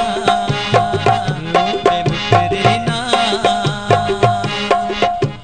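Instrumental interlude of a Saraiki tappe mahiye folk song: a hand drum with bending bass strokes keeps a quick steady rhythm under a held melody line.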